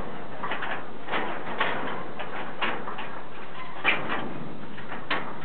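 Kubota 95 HP farm tractor running steadily, with irregular short knocks and clatters over the engine noise. The sharpest knock comes about four seconds in.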